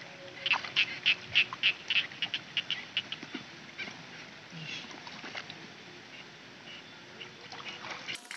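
Rice-field frogs calling from a flooded paddy: a quick run of short croaks, about four a second, for the first few seconds, then sparser calls.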